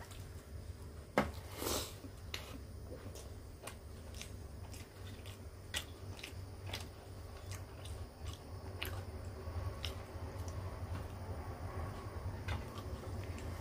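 Close-up eating sounds: a man chewing with wet mouth clicks and smacks while his fingers work rice against a steel plate, with a sharp click a little over a second in. A low steady hum lies underneath.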